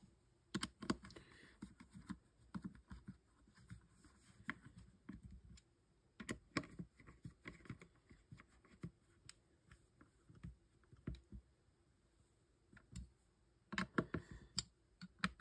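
Screwdriver driving the small screws that hold the front piece on a Byrna TCR launcher: faint, scattered clicks and ticks of the tool and the parts, with a quicker run of clicks near the end.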